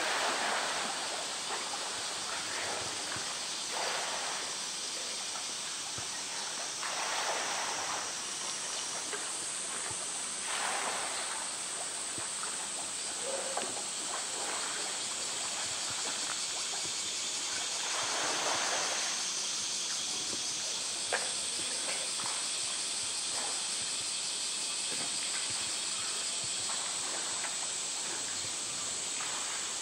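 Pool water splashing and sloshing as a polar bear thrashes and swims with a floating toy, in several short surges spread through, over a steady background hiss.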